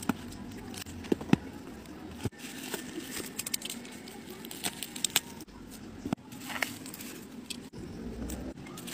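Bubble wrap crinkling and rustling as it is handled and cut open with a utility knife, with scattered small clicks and crackles.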